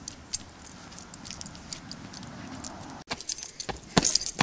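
Metal keys and a wallet chain jingling and clinking with each step of a person walking. There are a few louder, sharper clinks in the last second or so.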